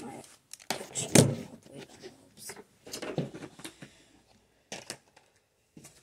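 Scattered knocks and thumps from objects being handled, the loudest and deepest about a second in and a few lighter ones spread through the rest.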